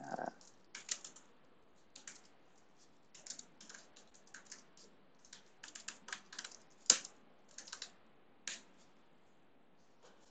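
Typing on a computer keyboard: irregular runs of faint key clicks, with one louder keystroke about seven seconds in.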